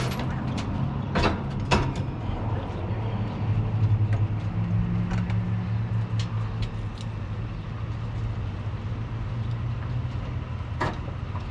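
Diesel fuelling of a pickup at a gas-station pump: a steady low mechanical hum, with several sharp clicks and knocks of the fuel nozzle and filler being handled, two of them close together about a second and a half in and another near the end.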